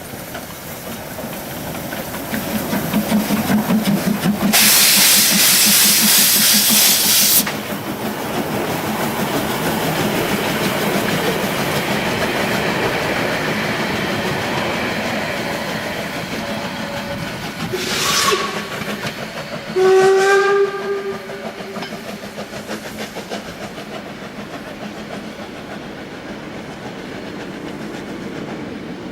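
Narrow-gauge steam locomotive working a train, with a loud burst of steam hiss lasting about three seconds early on, then the train running along the rails. About twenty seconds in, the locomotive gives a short whistle blast.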